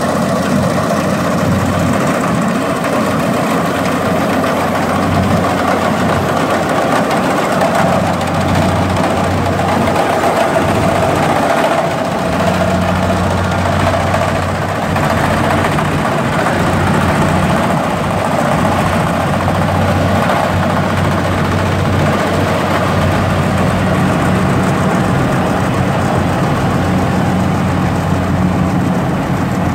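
Kubota tracked rice combine harvester's diesel engine and harvesting machinery running steadily while cutting, a low, even hum with a steady whine above it.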